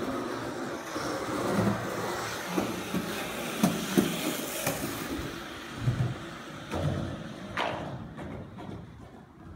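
A person moving along a concrete walkway toward the microphone and past it: a scuffing rush that grows louder as they near and fades as they go, broken by several irregular thuds on the concrete.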